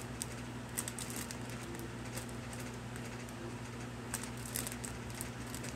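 Faint, scattered crinkles and ticks of a clear plastic merch bag being handled, over a steady low hum.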